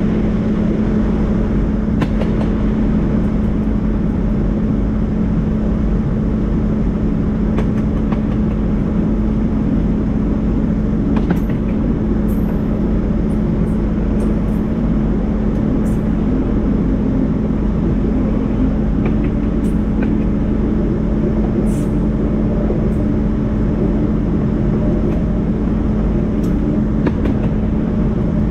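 KiwiRail diesel-electric locomotives hauling a coal train, their engines running at a steady drone over a low rumble.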